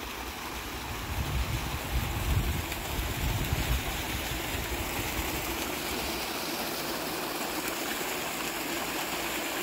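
A small stream splashing down over rocks into a pond, a steady rush of water. A low rumble rises over it between about one and four seconds in.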